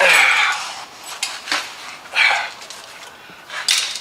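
Sheet-metal clanks and rattles as a replacement quarter panel is handled and fitted against the car body: a clatter at the start, another about two seconds in and a third near the end, with light clicks between.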